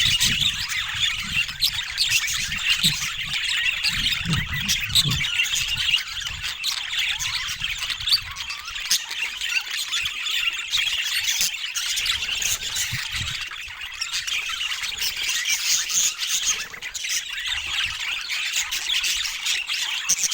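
A flock of budgerigars chattering and squawking together, a dense, continuous mix of warbles, chirps and squawks from many birds at once.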